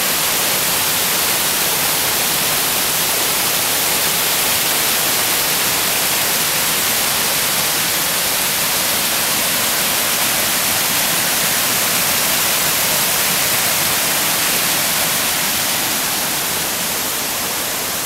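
Steady rush of a waterfall cascading down rock slabs, an even hiss that eases slightly near the end.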